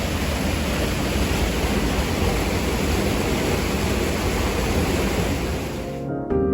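Waterfall on a rain-swollen river, water pouring with a steady, dense rush. About six seconds in it cuts off suddenly and soft ambient music begins.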